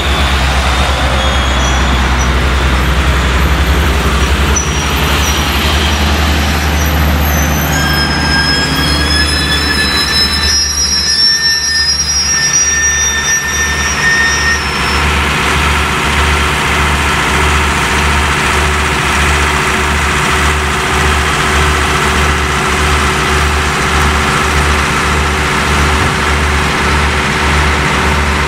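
Passenger train coaches rolling slowly along the rails as the train comes to a stop, steel wheels squealing in thin high tones. The squeal dies away about halfway through, leaving a low, throbbing engine idle.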